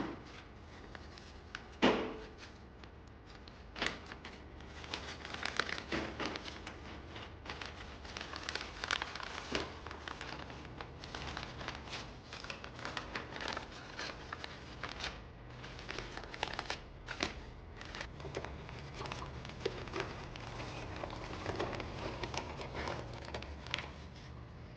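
Crinkling and rustling, as of packaging being handled, with many small clicks and a louder knock about two seconds in.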